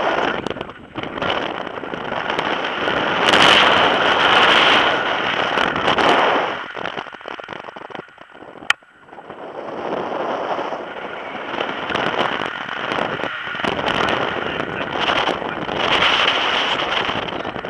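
Wind rushing and buffeting over an action camera's microphone in paragliding flight, swelling and easing in gusts, with one sharp click about nine seconds in.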